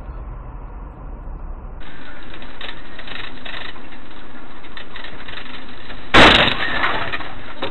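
Steady road and engine noise from inside a dashcam vehicle. About six seconds in, a sudden loud crash: a vehicle collision with glass breaking.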